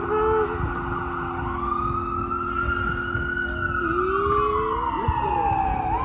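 Emergency-vehicle siren wailing: one slow rise in pitch, then a long slow fall, beginning to rise again at the end.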